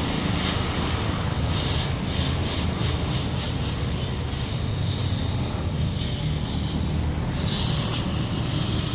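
Short hisses of compressed air over a steady low machine hum at a tyre puncture repair: a quick run of brief hisses in the first few seconds, then a longer, louder hiss near the end.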